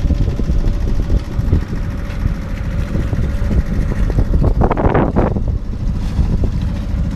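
A sailboat's auxiliary diesel engine running steadily under way, with wind buffeting the microphone. There is a brief louder rush about five seconds in.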